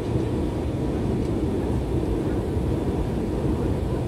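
Steady cabin noise of an Airbus A320 in flight: a low, even rumble of jet engines and rushing airflow heard from inside the cabin.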